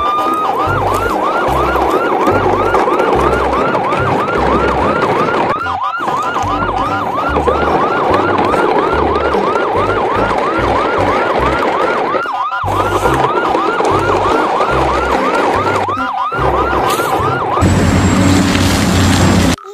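Electronic yelp siren, quick rising sweeps repeating about three times a second and stopping briefly at a few cuts. For the last two seconds it gives way to a louder, noisier sound.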